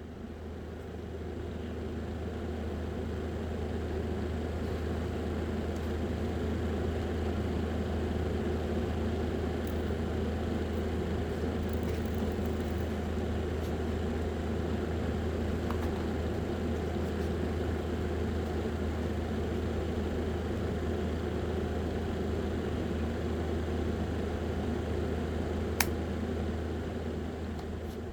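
Small electric fan motor of a homemade miniature air conditioner model running with a steady low hum. It swells up over the first few seconds and fades near the end, with a single sharp click shortly before the end.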